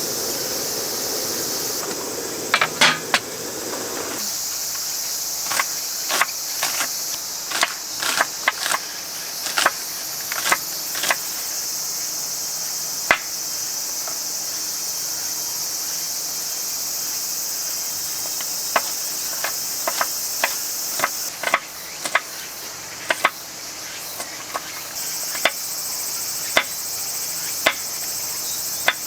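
Autumn crickets chirring steadily as a high, even background, with many short sharp clicks and taps on top, some in quick clusters, coming in two spells.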